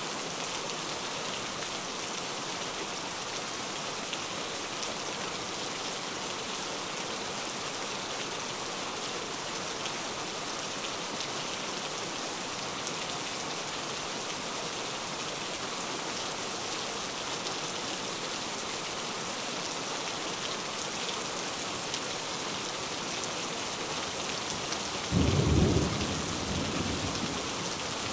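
Steady rain falling, an even hiss. Near the end a sudden low clap of thunder breaks in, the loudest sound, and dies away over a couple of seconds.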